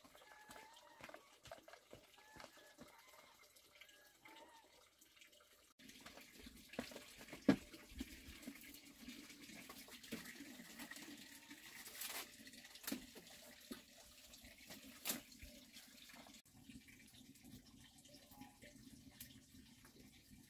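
Quiet ambience: faint chirping at first, then a steady water-like hiss with scattered light clicks and a few sharper knocks as leafy wild greens are handled and sorted on a woven bamboo tray.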